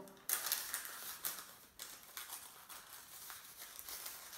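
A sheet of baking parchment rustling and crinkling in irregular crackles as it is rolled by hand into a piping cone.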